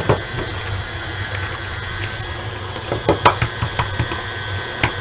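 Stand mixer motor running steadily as it beats cheesecake batter. A few sharp clicks and taps come about three seconds in and once more near the end.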